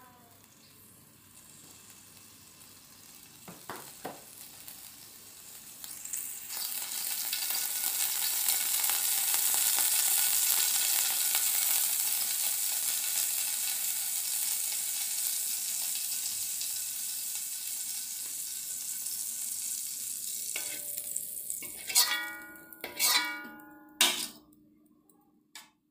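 Cooking oil heating in a wok over a gas flame and sizzling: a hiss that swells about six seconds in, then slowly dies away. Near the end come three short, sharp sounds with a brief ringing tone, louder than the sizzle.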